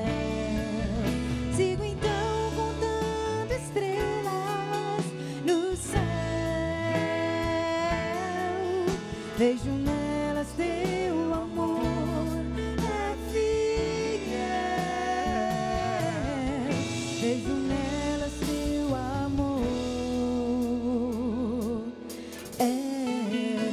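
A woman singing a Christian song live, backed by a band, her long held notes wavering with vibrato.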